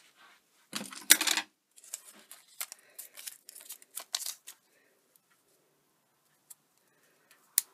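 Small papercraft pieces being handled: a loud short rustle about a second in, then scattered light clicks and taps, as a wooden heart embellishment and a glue dot are picked up and readied for sticking.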